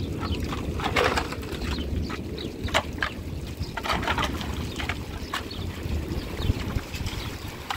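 A shovel scraping and slapping through wet mud and muddy water in short, irregular strokes, over a low wind rumble on the microphone.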